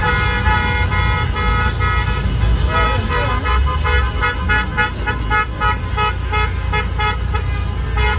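Many car horns honking at once in celebration, short rapid toots at several pitches overlapping, over the low rumble of traffic.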